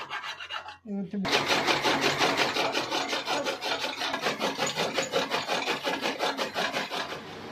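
A steel chaff cutter blade being sharpened by hand: quick, even rasping strokes, about six or seven a second, which pause briefly about a second in and then run on.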